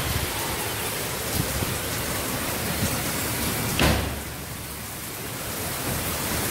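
Heavy rain pouring steadily, a dense even hiss. About four seconds in there is a single knock with a low boom, after which the rain sounds softer for a second or so before building back.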